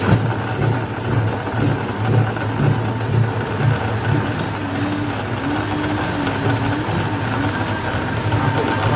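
Machinery running steadily, with an engine-like low hum that pulses unevenly.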